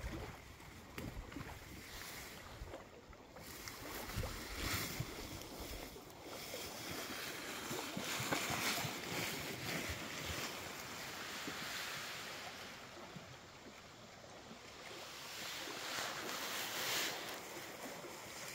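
Wind gusting over the microphone: a low rumble in the first few seconds, then hissing swells that rise and fall around the middle and again near the end.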